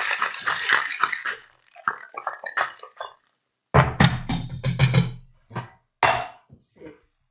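Metal cocktail shaker shaken hard, ice rattling rapidly inside, then slowing and stopping. A few seconds in, a loud knock and clatter as the shaker is broken open, then a few metal and glass clinks on the counter.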